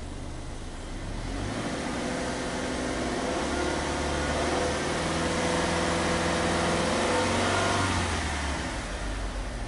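Subaru Legacy B4 2.0GT DIT's turbocharged 2.0-litre flat-four heard at its twin exhaust tips, free-revved: from idle the revs climb for about a second, are held up for several seconds, then drop back to idle near the end.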